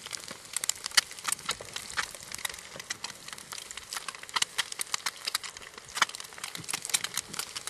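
Eggs frying in a pan on a small folding wood-burning stove, with the twig fire burning beneath: an irregular run of sharp pops and crackles, several a second, over a low sizzle.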